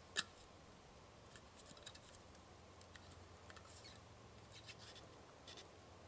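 Near silence in the woods: one sharp click just after the start, then faint scattered ticks and rustles.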